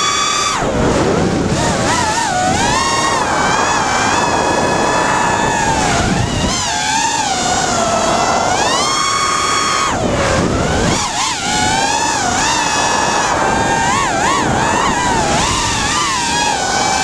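Onboard sound of a 5-inch FPV racing quadcopter (ImpulseRC Alien) with Cobra 2204 2300kv motors spinning 5x4x3 tri-blade props: a loud, high whining buzz whose pitch rises and falls constantly with the throttle. A few times the whine drops away briefly and a rush of air noise takes over.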